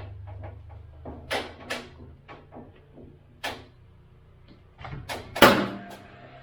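Scattered knocks and clatter of soffit boards being handled and fitted overhead, with one loud bang about five and a half seconds in. A low hum stops about two seconds in.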